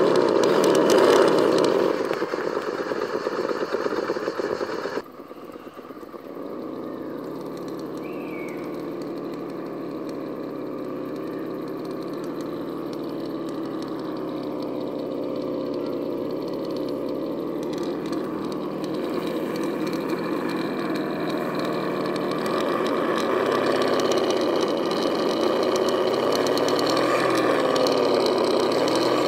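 RC rock crawler's electric motor and gear drive whining steadily at crawl speed, growing slowly louder as it creeps closer. Before this, in the first five seconds, a louder, rougher stretch of running noise cuts off abruptly.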